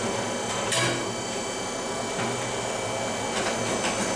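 Hammer striking a punch against the steel of a forged knife on the anvil: one sharp metallic blow about a second in, then a few lighter taps near the end, over a steady hum.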